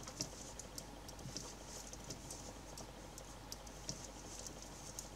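Faint, irregular clicking of knitting needles as stitches are worked by hand.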